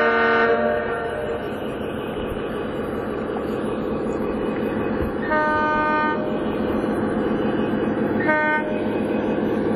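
O scale model diesel locomotive's onboard sound system: a steady engine drone with three horn blasts. The first comes at the start, the longest about five seconds in, and a short one near the end.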